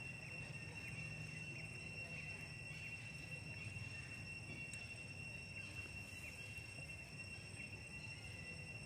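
Insects droning steadily in one unbroken high tone, over a low rumble, with a few faint ticks.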